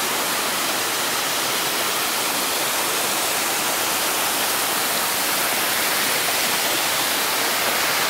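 Small waterfall splashing down over rocks: a steady rush of falling water.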